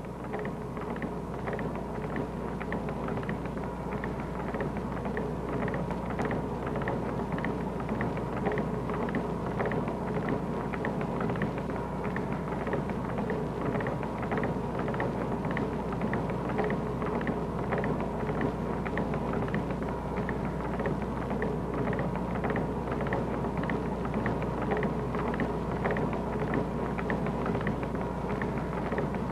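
Woodworking machinery shaping wooden wagon-wheel spokes, running steadily: a continuous mechanical noise with a regular clatter beating through it, over a low hum and a faint steady high tone.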